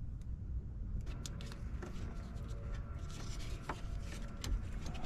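Scattered light clicks and rubbing from hands working on car parts, over a steady low rumble.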